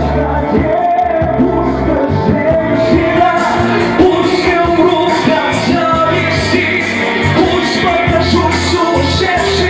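Loud karaoke backing track of a Russian pop song playing through the bar's speakers, with a steady beat, heavy bass and a melody line carrying on after a sung verse.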